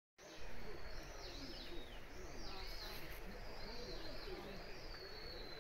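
Outdoor ambience of birds chirping and calling: many short, high, sliding whistled notes over a steady low hum, starting suddenly just after the start.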